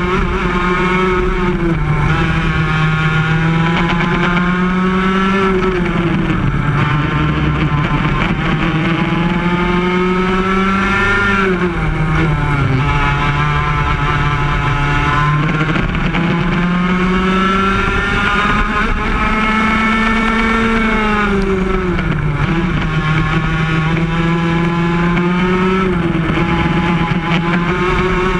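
Two-stroke Yamaha KT100 kart engine heard onboard at racing speed. Its pitch climbs steadily along each straight and drops sharply as the kart brakes for each corner, several times over.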